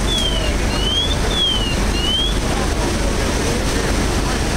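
Steady loud rumble of the fire scene, with wind on the microphone. Over it, a high electronic siren tone sweeps up and down about six times, each sweep under half a second, and stops about halfway through.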